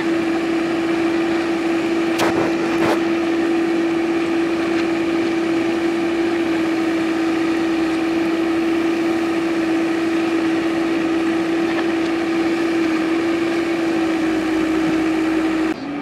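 JCB 3DX backhoe loader's diesel engine running steadily under work with a constant whine, with two sharp knocks about two to three seconds in as the backhoe bucket digs among stones. Near the end the sound drops suddenly and the whine settles lower.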